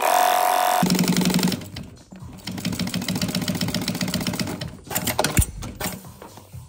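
Industrial sewing machine stitching a dry-bag seam in fast bursts. It starts abruptly, eases off about two seconds in, and runs again. There is a sharp knock a little after five seconds.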